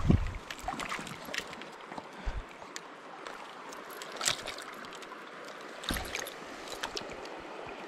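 River water running steadily over a shallow run, with scattered knocks and clicks close by, the loudest a low thump right at the start.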